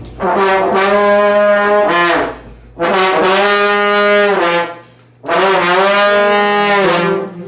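A brass instrument plays a classic New Orleans brass-band tail lick, a short phrase three times over with brief gaps between.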